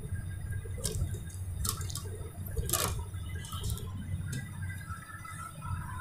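Clicks and knocks from the opened 32-inch LED TV's metal chassis and panel as it is lifted and turned over by hand, about five of them, the loudest about three seconds in, over a steady low hum.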